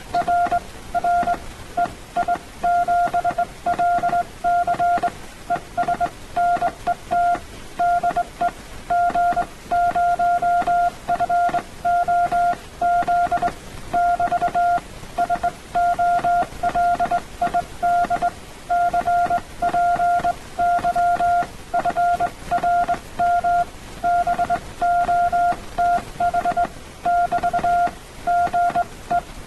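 Hand-sent Morse code (CW) from a brass up-and-down straight key: a single steady tone keyed into short dots and longer dashes at about 17 words per minute. It spells out "r r EI7LC ESNET de G0FOZ <BT> solid cpy frm both", a check-in on a Morse net.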